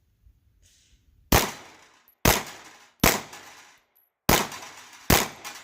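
Glock 17 9mm pistol fired five times at an uneven pace, roughly a second apart, each shot sharp with a short echo tail.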